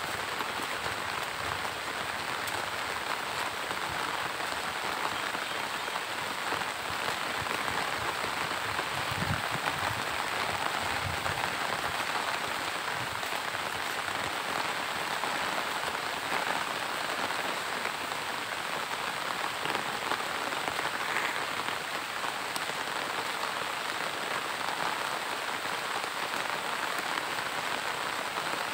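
Monsoon rain falling steadily, an even hiss of drops.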